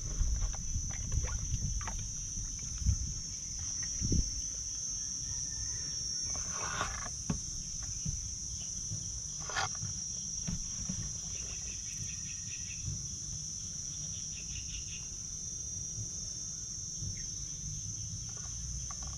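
Steady high-pitched drone of insects, unbroken throughout. A low rumble and a few soft knocks come in the first few seconds.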